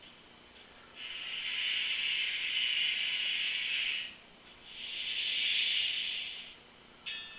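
Two long steam hisses from a Soundtraxx Tsunami TSU-750 sound decoder's heavy steam sound file, played through a small speaker in an N-scale sound car: one about three seconds long starting a second in, then a second, shorter one.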